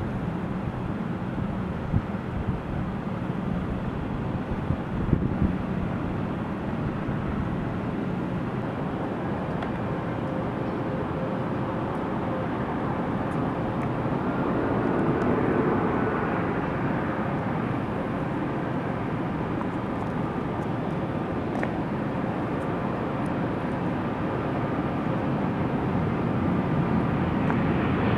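Airliner engines at an airport: a steady rumble and whine that swells about halfway through and grows louder again near the end. A few knocks in the first seconds.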